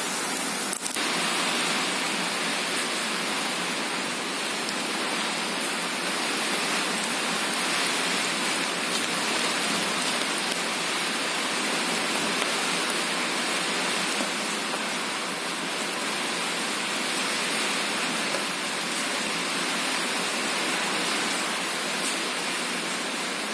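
Steady, even hiss of background noise, rain-like and unchanging, with one brief click about a second in.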